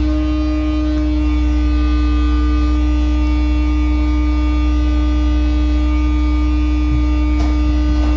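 Sewer maintenance machinery running outside: a loud, steady mechanical drone with a deep low hum and a fixed whining tone above it.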